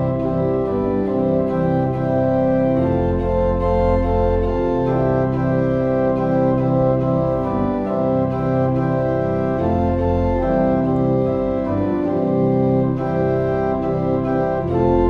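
Organ playing slow, sustained chords that change every couple of seconds over deep bass notes.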